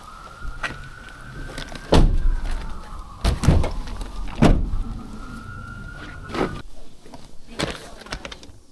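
Cargo van doors being shut, several heavy thumps, while a siren wails, rising and falling in pitch twice.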